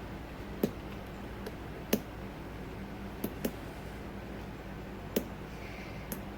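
Lock pick working the pin stack of an old Corbin padlock under light tension, giving about seven small sharp clicks and pops at irregular intervals over a steady low hum. The owner calls it a very poppy lock and suspects serrated pins or master wafers inside.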